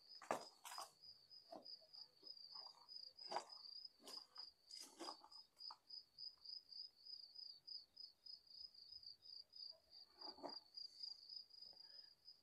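Faint cricket trilling steadily at a high pitch, with a few soft scattered knocks and scuffs.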